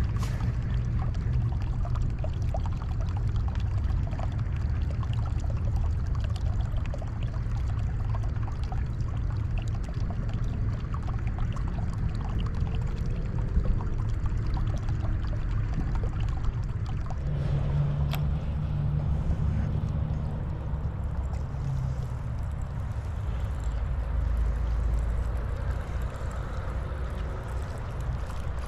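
Small waves lapping and trickling on a rocky lakeshore, over a steady low rumble.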